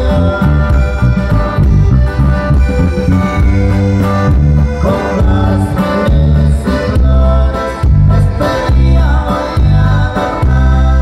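Live band playing loud through a PA system: a heavy bass line pulsing in a steady rhythm under drums, electric and acoustic guitars and keyboard.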